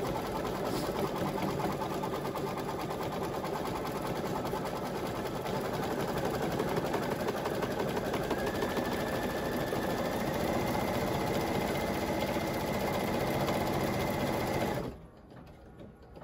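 Brother Luminaire XP1 embroidery machine stitching at a steady, rapid rate, slowed to a speed setting of 900 from 1050. The stitching stops suddenly near the end.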